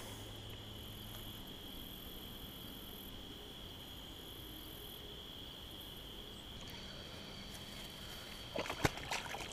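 Insects trilling in one steady, unbroken high-pitched tone. Near the end come a few louder clicks and knocks from a baitcasting reel being handled.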